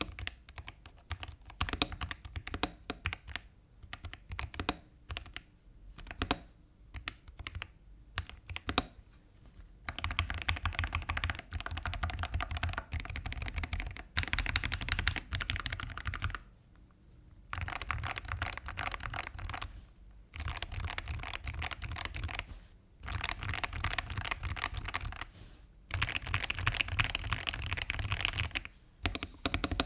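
Mechanical keyboard with Akko Starfish linear switches being typed on. For about the first ten seconds the keys are pressed one at a time with gaps between, then it turns to fast continuous typing in runs of several seconds with short pauses between them.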